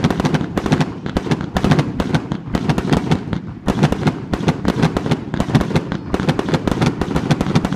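Consumer fireworks and firecrackers going off in a dense, continuous barrage: many sharp bangs a second over a low rumble, with no letup.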